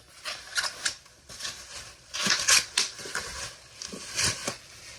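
A bag and packaging rustling and crinkling by hand, with scattered light clicks and scrapes, as a radio is drawn out of its bag. The handling is loudest about two to three seconds in.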